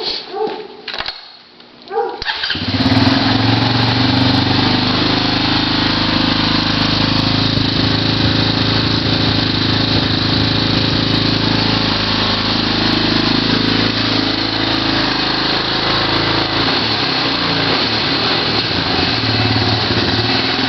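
Honda 250EX ATV's single-cylinder four-stroke engine starting about two seconds in and then running steadily through an exhaust with the spark arrestor fitted, its engine speed shifting a few times in the later part.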